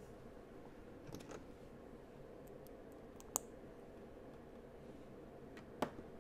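LEGO bricks being pressed onto a baseplate: a handful of sharp plastic clicks and taps, a few about a second in, the loudest about three and a half seconds in and two more near the end. Under them, the steady hum of a room heater.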